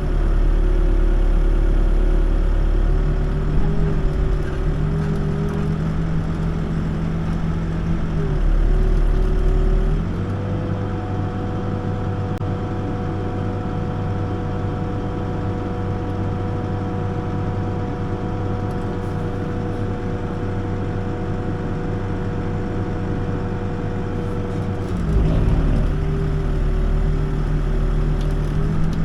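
Backhoe's diesel engine running. About ten seconds in it rises to a higher, steady speed, holds there, and drops back to its lower speed about fifteen seconds later.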